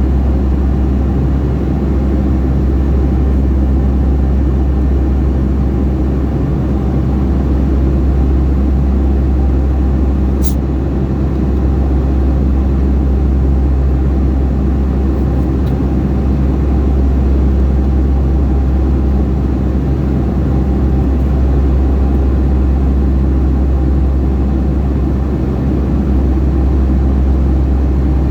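Steady cabin noise of a Boeing 757-300 in flight: a loud, even drone of engines and airflow, deep at the bottom, with a steady engine hum. A single short click about ten seconds in.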